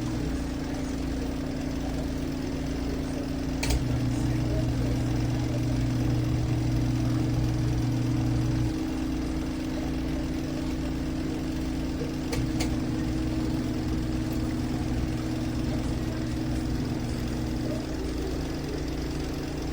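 ZenStyle twin-tub portable washing machine's motor running with a steady hum. The pitch of the hum shifts every few seconds as the tub agitates, and there are a couple of faint clicks.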